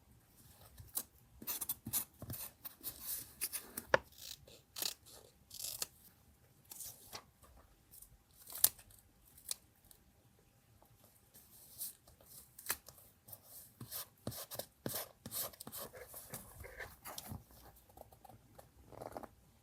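Paper being handled and snipped with scissors for a collage: irregular crisp snips, rustles and small clicks with short pauses between them. A sharp tap stands out about four seconds in and another near the middle.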